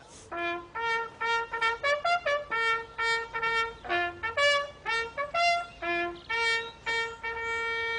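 A bugle call sounded on a brass horn for the flag raising: a quick run of short notes on a few pitches, ending on one long held note.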